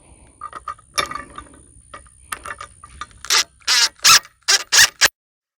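Ratchet wrench driving a lag screw into a wooden gate post. Scattered light clicks come first, then about five loud ratcheting strokes in the last two seconds, cutting off suddenly.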